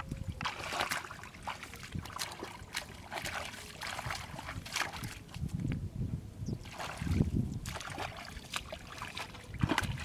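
Hands sloshing and scooping in shallow muddy water, with wet mud squelching: irregular splashes of groping for fish by hand.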